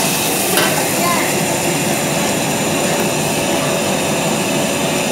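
Stir-frying in a carbon-steel wok over a high-flame restaurant wok burner: the burner runs with a steady rushing noise under the sizzle of the food, while a metal spatula and ladle scrape and knock against the wok, with one sharp knock about half a second in.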